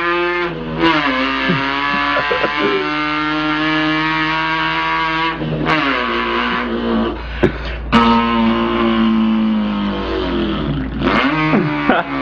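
A man imitating an import car engine with his mouth: a continuous buzzing engine note that holds and climbs, then drops in pitch again and again like gear shifts, with short breaks for breath about five and a half and eight seconds in.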